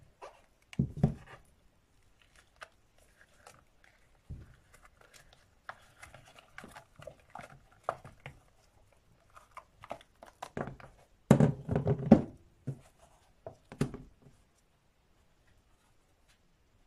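Cured epoxy resin casting being worked out of a flexible silicone mold: scattered small clicks, rustles and knocks as the silicone is bent and peeled away, with a cluster of louder knocks about eleven seconds in.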